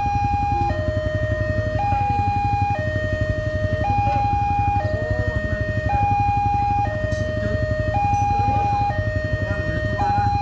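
Railway level-crossing warning siren sounding a steady two-tone hi-lo alarm, each tone held about a second, the signal that a train is approaching and the crossing is closed.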